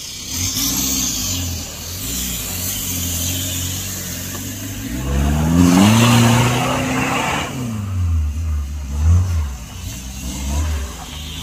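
Off-road 4x4 vehicle's engine revving: the pitch climbs about five seconds in, holds for about two seconds with a rush of noise at its loudest, then drops, followed by several short throttle blips.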